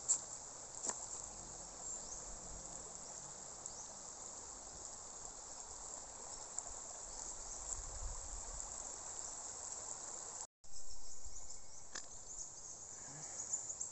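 Tropical forest insects shrilling steadily at a high pitch, with many small flickering chirps in the chorus. The sound drops out completely for a split second about ten and a half seconds in, then carries on.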